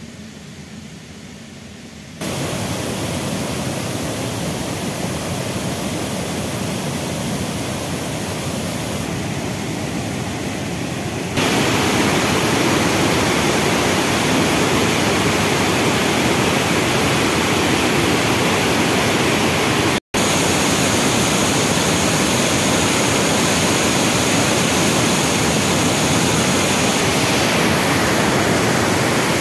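Flood-swollen mountain waterfall and torrent: muddy water rushing over boulders in a steady, loud noise. Quieter for the first couple of seconds, it steps up about two seconds in and again about eleven seconds in, with a brief dropout about twenty seconds in.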